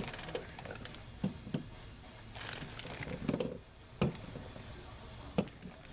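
A handful of light, irregular knocks and clicks of suspension parts and polyurethane bushings being handled on a workbench.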